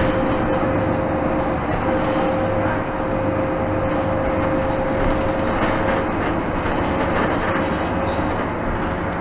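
Interior running noise of a 2017 Nova Bus LFS diesel city bus under way: a steady drivetrain and road rumble, with a thin steady whine that fades out about six seconds in.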